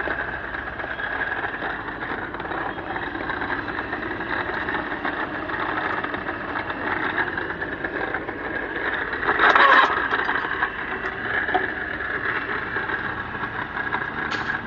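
Steel bar cutting machine (Topall GQ40, driven by a 3 kW three-phase electric motor) running steadily with a mechanical whir and rattle. Partway through comes one loud sudden crunch lasting about half a second as the cutter shears through the steel rebar.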